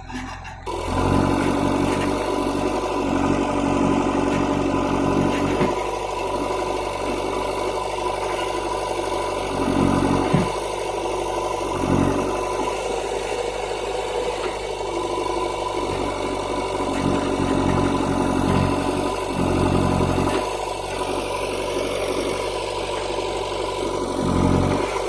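JCB 3DX backhoe loader's diesel engine running, coming in suddenly about a second in, then surging in revs again and again as it works under load.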